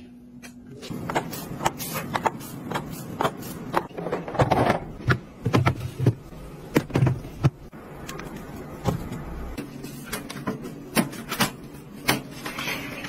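Household items being handled and set down, among them plastic food-storage boxes going onto fridge shelves: a run of irregular clicks, taps and knocks, the loudest ones near the middle.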